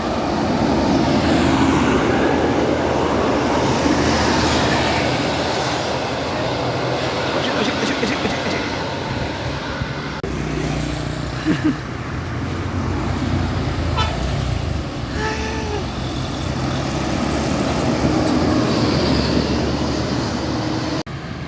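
Large tour buses with their engines running as they move past, with a few short horn toots partway through.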